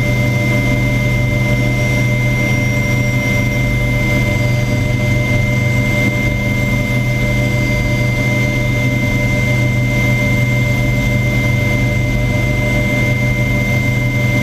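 Cabin noise inside an EH-101 Merlin helicopter in flight: a steady high whine with lower tones over a low drone, unchanging throughout.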